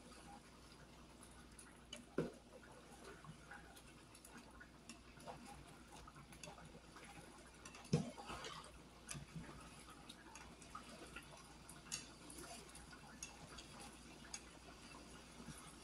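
Faint, scattered ticks and pops from a skillet of taco meat simmering in sauce while it is stirred with a plastic spatula, with a few louder knocks of the spatula against the pan, about two seconds in, eight seconds in and twelve seconds in.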